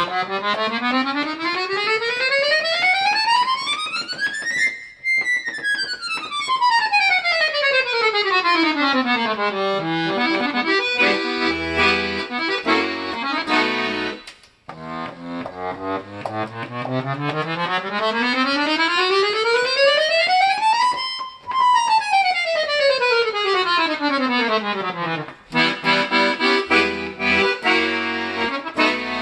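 Italian Vercelli button accordion (bayan), freshly repaired and tuned, being played. Two long fast runs climb several octaves and fall back again, and each is followed by chords over short bass notes.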